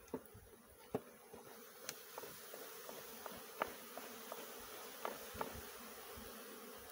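Honeybees buzzing steadily from a colony in a tree hollow, with a handful of sharp clicks and knocks as a knife cuts at the bark and comb beside the nucleus box.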